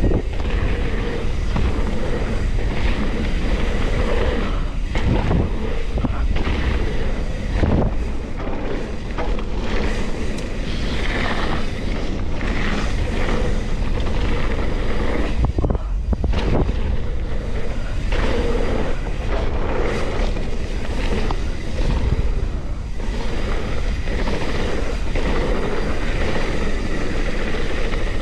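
Mountain bike ridden fast down dirt singletrack: wind rumbling on the microphone, with tyres running over dirt and leaf litter and frequent short rattles and knocks as the bike goes over bumps.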